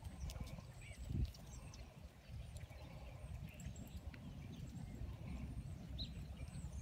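Pony walking on a soft dirt arena, its hoofbeats dull and muffled under a steady low rumble, with a heavier thump about a second in and faint bird chirps.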